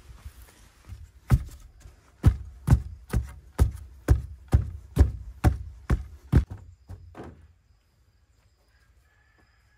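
A run of about a dozen heavy thuds, roughly two a second, stopping about seven seconds in.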